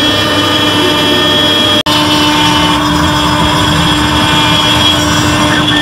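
CNC engraving router running steadily, its spindle and cutter milling a metal shoe mold: a loud even whine with several held tones over a grinding hiss. It breaks off for an instant just under two seconds in and resumes.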